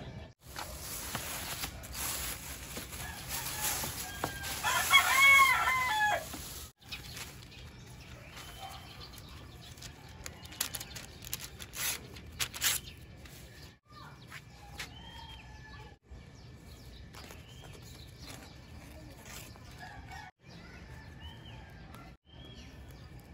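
A rooster crows once, about five seconds in, the loudest sound, over a steady hiss that stops soon after. Then paper and banana leaves rustle and crinkle as they are handled, with faint short chirps in the background.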